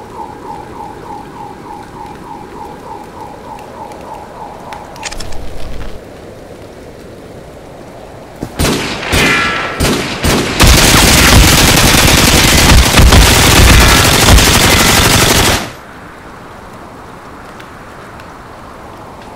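Steady rain hiss with a rapidly pulsing electronic tone for the first few seconds. Then come several single gunshots, followed by a very loud burst of machine-gun fire lasting about five seconds that cuts off suddenly, leaving only the rain.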